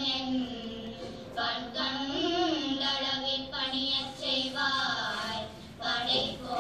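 A girl singing a devotional song solo, holding and bending long notes over a steady drone, with a short break in the line about a second before the end.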